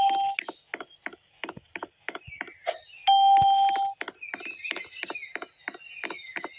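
Fast, irregular clicking throughout, with two steady beeps just under a second long, the first right at the start and the second about three seconds in.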